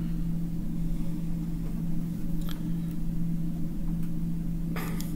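Steady low electrical hum of room tone, with a faint click about halfway and a short breathy rustle near the end.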